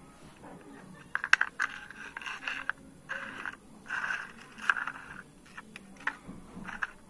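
Hard plastic toy pieces handled and set down on a concrete floor: scattered light clicks and short scrapes.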